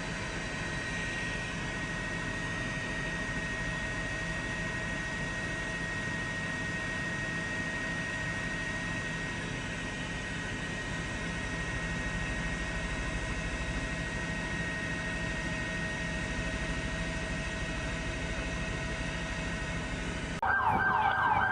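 Steady engine drone with a constant high whine, like an aircraft heard from on board. It cuts off abruptly about a second before the end, where a louder sound with wavering tones starts.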